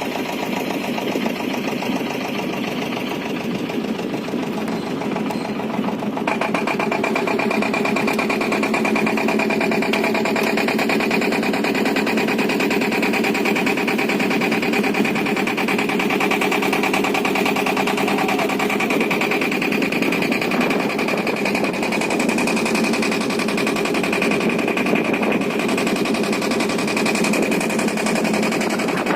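A small engine running steadily throughout, its pitch settling and holding a little after the start.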